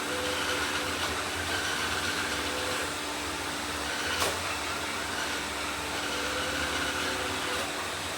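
Several robot vacuums running at once: a steady whirr of motors and brushes with a few faint humming tones, and a single sharp click about four seconds in.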